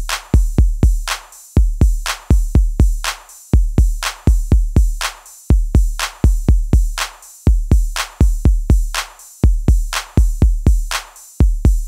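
Electronic background music: a steady drum-machine beat of deep kick drums and crisp snare and hi-hat hits.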